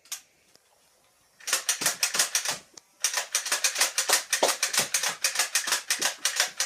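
Toy foam-dart blaster's rapid-fire mechanism clicking in a fast rattle, about eight clicks a second, in two runs with a short break about three seconds in.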